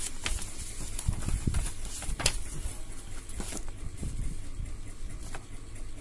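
Paper instruction sheet rustling and crackling as it is flipped and unfolded by hand, with irregular soft ticks and clicks.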